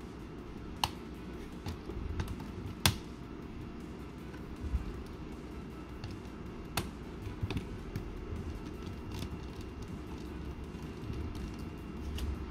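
Scattered sharp clicks and taps of a small screwdriver and fingers working on a laptop's CPU fan and heat-pipe assembly as a retaining screw is loosened and the fan is eased up. The loudest clicks come about a second in, at three seconds and near seven seconds.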